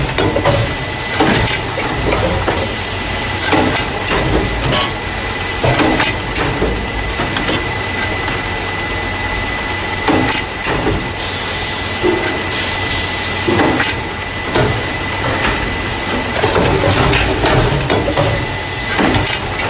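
Carton caser packing machine running, which moves paper juice and milk cartons into plastic crates. It has a steady hum and a constant high whine, under irregular clacks and knocks from its mechanism. Stretches of hissing come about three seconds in and again around eleven to thirteen seconds.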